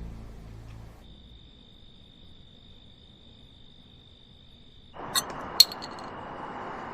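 A steady high cricket trill in night-time quiet. About five seconds in, a hissing outdoor ambience comes in with another steady high trill, and two sharp metallic clinks follow close together, the second the loudest.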